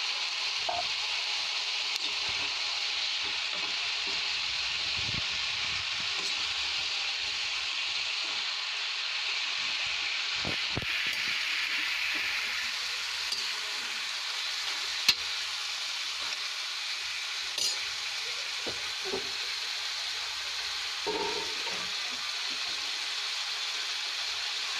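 Potatoes, cauliflower and peas sizzling steadily in hot spiced oil and masala in a pan, a little water just added, while a perforated metal spatula stirs them and clinks against the pan a few times, once sharply about halfway through.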